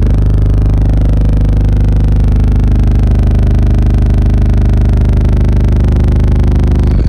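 Three Skar ZVX 18-inch subwoofers playing a very loud, sustained deep bass note, steady throughout with its overtones reaching well up the range.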